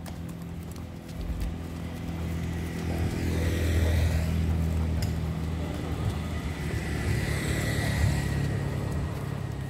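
Road traffic: two motor vehicles drive past one after the other, about four seconds apart, each swelling and fading over a steady low engine hum.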